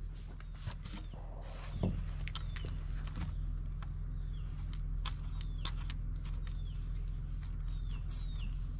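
Scattered small clicks and scrapes from hands turning a part in a freshly tapped hole in a plastic barrel, over a steady low hum. Short high chirps that fall in pitch come from birds about six times.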